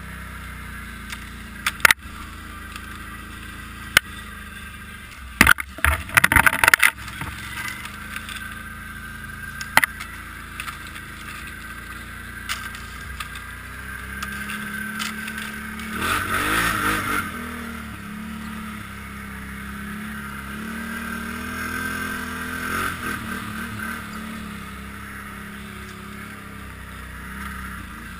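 ATV engine running as the quad is ridden through deep snow, its note rising and falling with the throttle. Several sharp knocks and rattles come in the first ten seconds, the busiest cluster about six seconds in, and there is a louder rushing patch about halfway through.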